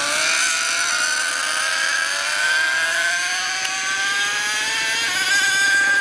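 Small nitro glow-fuel two-stroke engine of an RC monster truck running at high revs, a buzzing whine whose pitch climbs slowly as the truck speeds up.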